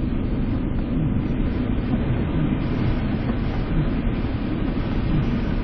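Steady low rumble of a car driving on a snowy road, heard from inside the cabin: engine and tyre noise with no distinct events.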